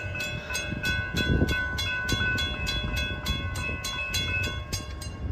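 Railroad crossing warning bell ringing in even strokes, about three a second, while the crossing is activated and its gate arms lower.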